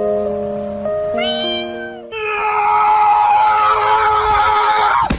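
Background music of held notes for about two seconds, then a long, drawn-out animal cry lasting about three seconds that drops in pitch at the end.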